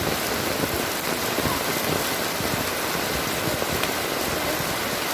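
Heavy rain falling steadily and splashing on flooded ground and wet paving stones.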